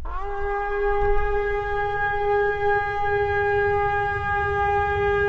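A single long horn blast held on one steady note. It swoops up into pitch at the very start, with a low rumble underneath.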